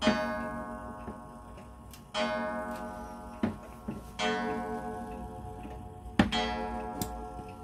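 Hermle Vienna-style wall clock striking the hour on its gong: four strokes about two seconds apart, each ringing and fading slowly. A few short, sharp clicks fall between the strokes.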